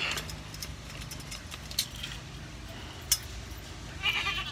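A wooden pen gate being pushed shut, with scattered light clinks and knocks and a sharper click about two seconds in and another about three seconds in.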